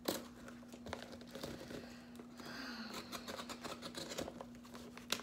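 Packing tape on a small cardboard box being scratched at and torn open by hand, with rustling, crinkling and small irregular clicks.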